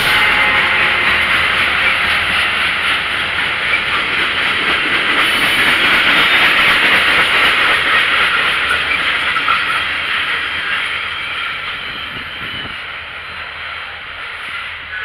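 Short freight train passing close by: the cars' wheels rolling on the rails make a steady noise that is loudest around the middle and fades over the last few seconds as the train moves away.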